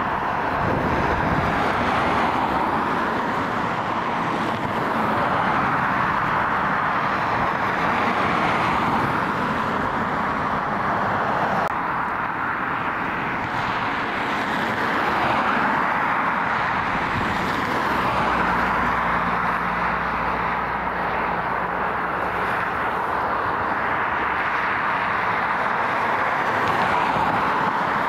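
Boeing 777-300ER's GE90 jet engines running at taxi power: a steady rushing noise that swells and eases a little.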